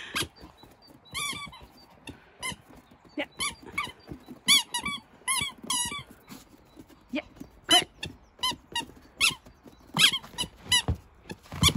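Squeaky rubber toy ball squeaking again and again as a Pomeranian puppy bites and chews it: about twenty short, high squeaks at an uneven pace, some in quick runs of two or three.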